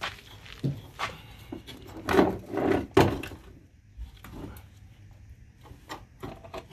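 Knocks, clunks and scraping of metal as a Hyundai Elantra's front strut is worked loose and pulled out of the wheel well, the loudest clunks coming about two to three seconds in, then lighter taps.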